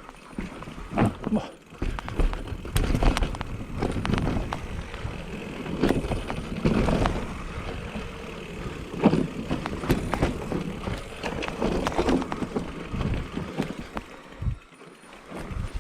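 Specialized Turbo Levo electric mountain bike descending a rough trail: tyres rolling over dirt and rocks in uneven surges, with many sharp clicks and knocks from the chain and frame rattling over bumps.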